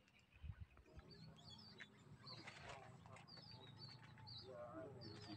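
Faint, repeated high whistling calls of whistling ducks, short twittering notes a couple of times a second, starting about a second in, over a low steady hum.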